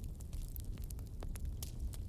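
Campfire burning, with irregular sharp crackles and pops of burning wood, several a second, over a steady low rumble of the flames.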